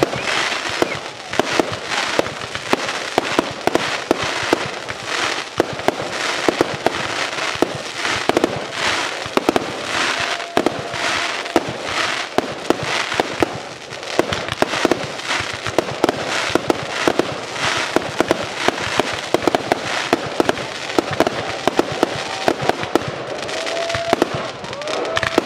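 Fireworks display: aerial shells launching and bursting in rapid succession, a dense run of bangs and crackling, with a couple of short whistles about ten seconds in and near the end.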